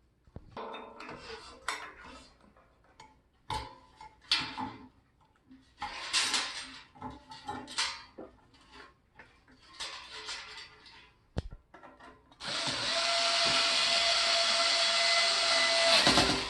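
Scattered rustling, clinks and knocks of parts being handled, then a small power tool's motor runs steadily for about four seconds and stops just before the end.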